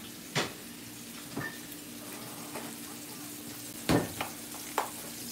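Bone-in double-cut pork chops sizzling steadily as they sear in a hot cast-iron skillet, with a few sharp knocks, the loudest about four seconds in.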